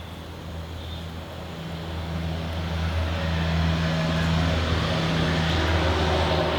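An engine drones steadily and grows louder over several seconds before it begins to ease off.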